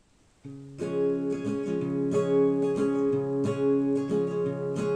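Acoustic guitar strummed in a steady rhythm, starting about half a second in: the instrumental intro to a song, recorded on a phone.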